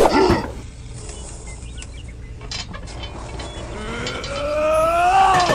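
Added cartoon-style sound effects: a quick falling swoop right at the start, then a long pitched cry that rises for the last second and a half and bends down at the end.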